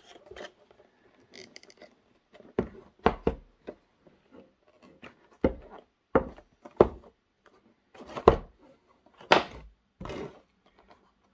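Cardboard box of a model railway car being handled on a wooden table: about ten sharp knocks and taps at irregular intervals as the box is opened and its inner tray pulled out, with a short scrape near the end.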